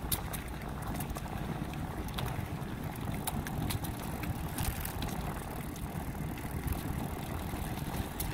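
Wind rushing over the microphone with bicycle tyres rolling on pavement, a steady low rumble broken by scattered sharp clicks and ticks.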